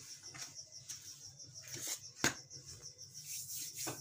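An insect chirping rapidly and steadily in a high, even pulse, about seven or eight chirps a second, over a low hum, with one sharp click a little past the middle.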